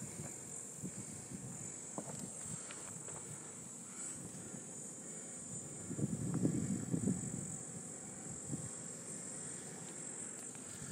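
Steady, high-pitched chirring of insects in the scrub. A low, uneven rumble swells for about a second and a half some six seconds in.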